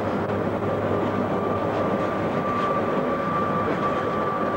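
Rack railway car of the 800 mm Rochers de Naye cog line running, a steady rumble with a thin, steady high whine over it.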